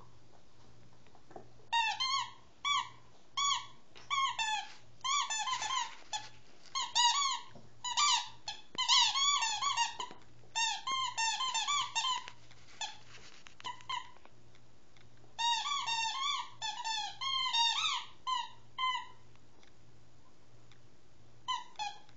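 Dog's squeaky toy squeaking in quick runs of short, high squeaks as the dog bites and chews it. There are pauses of a few seconds between the runs, and only a couple of squeaks near the end.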